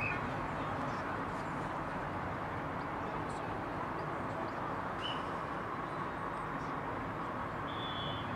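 Steady outdoor background noise, with a few faint brief high chirps and a short, steady high whistle-like tone near the end.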